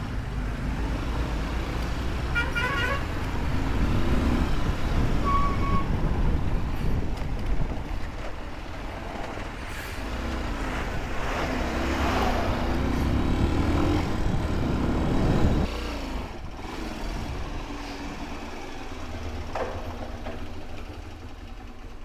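Road traffic heard from a moving motorcycle: a steady engine and road rumble with vehicle horns honking, a quick run of toots about two to three seconds in and a short beep a few seconds later. Engine pitch rises and falls between about eleven and fifteen seconds, and the rumble gets quieter after about sixteen seconds.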